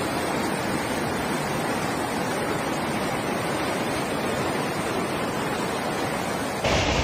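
Fast floodwater rushing down a street: a steady, even rush of water. Near the end the sound switches abruptly to a louder, harsher noise.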